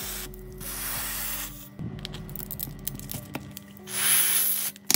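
Background music with two bursts of hiss, about a second long each; the second, near the end, is louder and higher. A sharp click comes right at the end.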